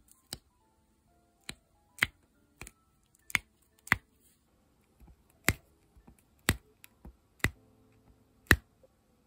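Diamond painting pen pressing round resin drills onto the sticky canvas, making a sharp click with each placement, roughly once a second at uneven intervals.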